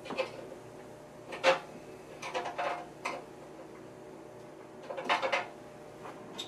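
Hands working in the card cage of an IMSAI 8080 computer, moving the clock chip and a Z80 card: short clicks and rattles of plastic and metal parts, about a second and a half in, again two and a half to three seconds in, and around five seconds, over a faint steady hum.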